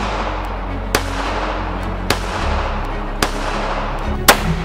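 Four pistol shots from a Beretta 80X Cheetah in .380 ACP, about one a second, each followed by a short echo, over background music. The last shot is the loudest.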